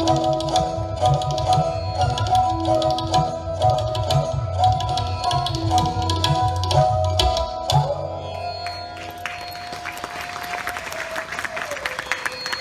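Sarangi bowing a melody in raag Shree over tabla and a tanpura drone. About eight seconds in the tabla stops, and the sarangi holds a long note that slides down as the piece ends. Applause rises near the end.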